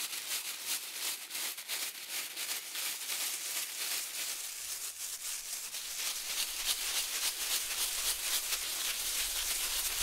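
Cholla buds rattling and scraping inside a woven willow basket as a small hand broom scrubs them against the basket's bottom: a fast, continuous scratching rattle. This is the spines being brushed off the buds.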